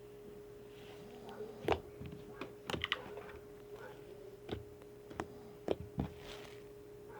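Slime being squished and poked by hand for ASMR, giving irregular sticky clicks and small pops, about a dozen in all. A steady faint tone hums underneath.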